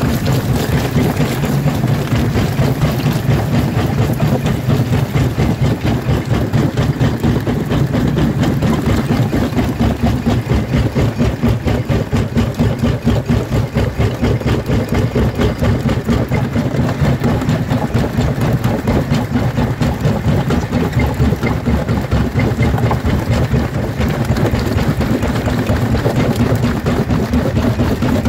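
Jaw crusher running under load, breaking stone between its corrugated jaw plates: a steady heavy machine rumble with a fast, continuous clatter.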